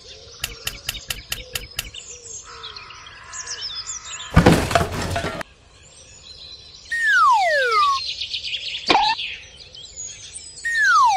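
Birdsong: high chirps and falling whistled calls, two of them sliding down in pitch, with a quick run of clicks in the first two seconds and a loud rush of noise lasting about a second, about four seconds in.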